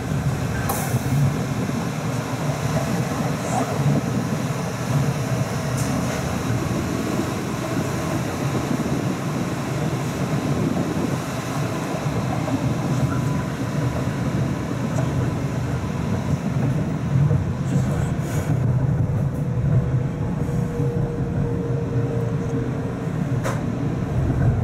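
South Shore Line electric commuter train running along the track, heard from the front cab: a steady rumble of wheels on rail with an occasional click. A faint steady whine comes in near the end.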